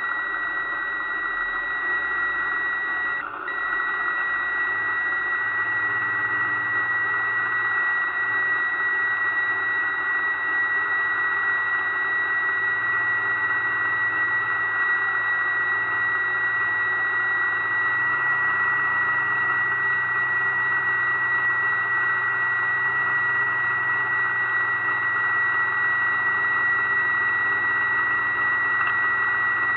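Onboard sound of an RC fire boat's drive motor running at a steady speed: a constant high whine over a hiss. There is a brief dip about three seconds in.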